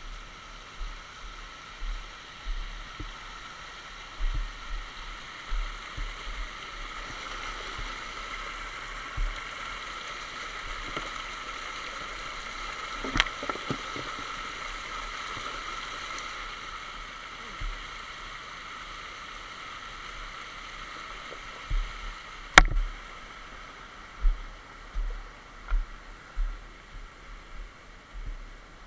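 Small rocky stream rushing and splashing over stones, louder midway through. Scattered thuds and bumps throughout, and a sharp knock about two-thirds of the way through.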